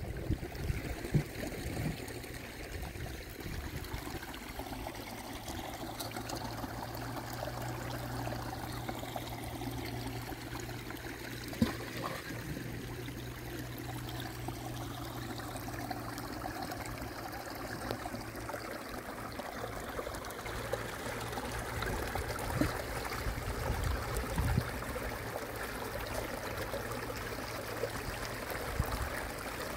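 Running water trickling steadily, as from a stream, with a faint steady low hum underneath and a few small ticks.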